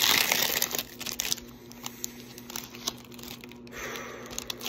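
Paqui One Chip Challenge foil pouch being torn open by hand: a loud rip at the start, then crackling and crinkling of the foil wrapper, with another burst of crinkling near the end.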